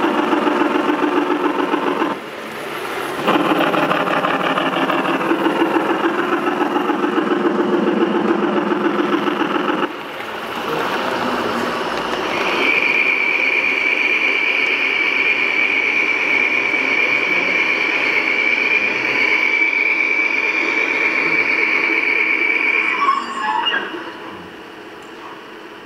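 Gauge 1 model BR 44 steam locomotive running with fast, even chuffing, which drops briefly near the start and fades out about ten seconds in. A steady, high-pitched squeal then holds for about ten seconds over quieter running noise and cuts off near the end.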